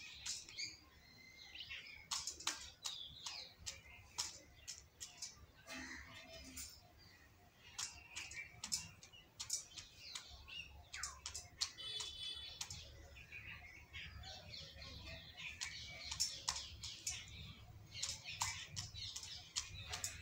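Indian peacock's beak clicking irregularly against a steel bowl as it feeds, with small birds chirping in the background.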